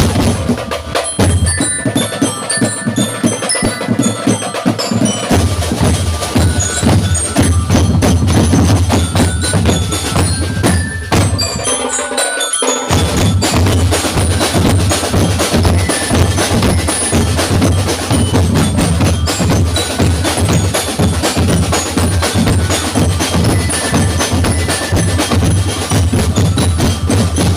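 Instrumental band music with a driving drum beat, bass and bright bell-like melodic tones. The bass and drums drop out for a moment about halfway through, then come back in.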